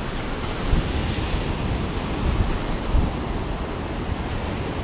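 Ocean surf breaking and washing up the beach, with wind buffeting the microphone in a steady, uneven low rumble.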